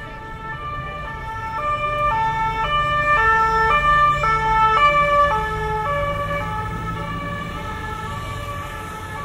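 Emergency vehicle's two-tone siren, switching between a high and a low note about every half second. It grows louder, is loudest near the middle, then fades as the vehicle passes. A low traffic rumble runs underneath.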